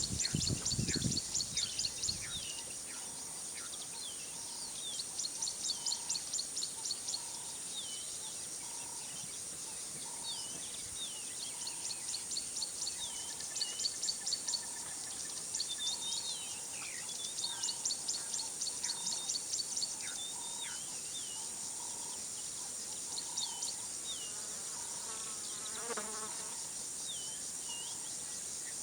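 Bush ambience: a steady high insect drone under repeated bouts of rapid, high trilling and many short, falling whistled bird calls, with a faint note pulsing about once a second. A low rumble fades out in the first two seconds.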